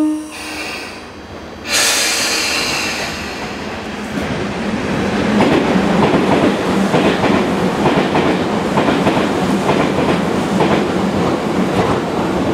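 Stationary Tobu 10000-series electric train's on-board equipment starting up during a startup test. A sudden loud hiss comes in about two seconds in and fades, then a steady machine hum runs with a knock about twice a second.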